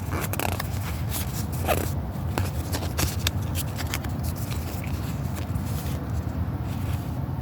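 Foil Pokémon TCG booster pack being torn open and crinkled, a quick run of sharp crackles and rustles mostly in the first three seconds, then sparser rustling as the cards are handled. A low steady hum runs underneath.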